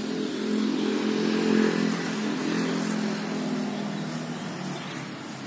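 A motor vehicle driving past: its engine hum swells over the first second and a half, then fades away over the next few seconds.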